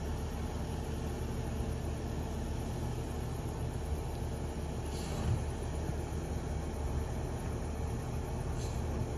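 Garbage truck's engine running at a distance, a steady low rumble, with two short sharp sounds about five seconds in and near the end.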